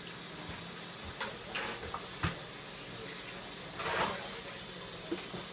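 Vegetables sizzling in a pan on the stove, a steady hiss, with a few light utensil clicks and a stir of the pan with a metal skimmer about four seconds in.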